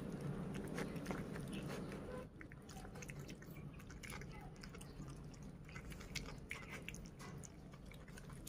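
A piglet and a baby monkey eating fried noodles: irregular wet chewing and smacking clicks. A low steady hum underneath stops about two seconds in.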